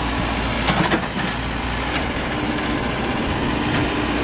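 CAT 432E backhoe loader's diesel engine running steadily under digging load, with a steady whine, as the backhoe bucket swings and dumps soil. A few sharp clanks and knocks come about a second in.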